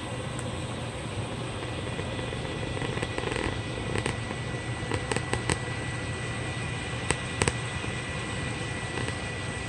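Breaded meatloaf slices sizzling in hot oil in a frying pan, a steady hiss with sharp pops and crackles of spattering oil, clustered about halfway through and again near three quarters. A steady hum runs underneath.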